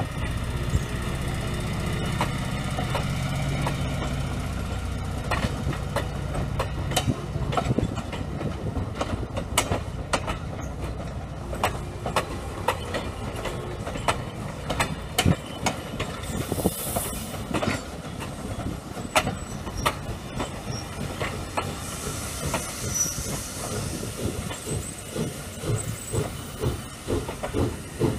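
Passenger coaches rolling slowly past on jointed track: a low rumble at first, then wheels clicking over the rail joints, the clicks coming in a steadier rhythm of about two or three a second near the end. A faint steam hiss comes in briefly now and then.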